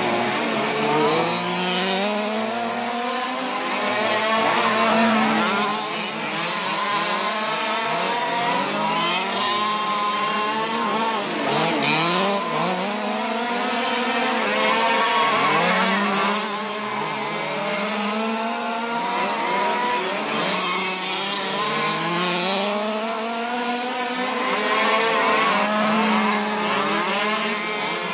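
Several fifth-scale petrol RC cars racing together, their small two-stroke engines making many overlapping notes that rise and fall over and over as the throttles open and ease off.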